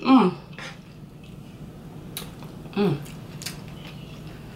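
Close-up eating sounds: a few sharp clicks from a wooden fork, and wet chewing. Two brief falling hums of enjoyment come from the eater, one at the start and one about three seconds in.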